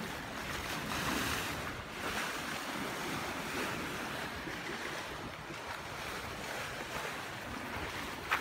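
Steady wash of sea waves on a rocky shore, with some wind buffeting the microphone.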